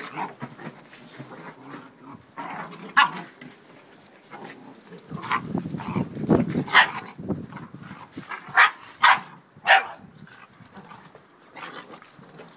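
Young puppies play-fighting, giving short sharp yaps and barks, with three in quick succession about nine seconds in.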